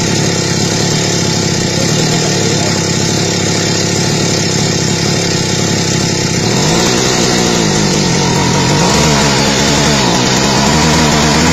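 Restored Kawasaki TD40 two-stroke brush-cutter engine running with no load. It holds a steady speed for about six seconds, then revs up and down a few times and settles at a higher speed near the end.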